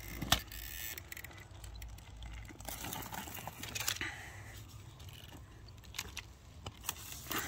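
Handling noise as an RC rock crawler is picked up off the rocks and turned over: a sharp click about a third of a second in, then scattered clicks and scuffs.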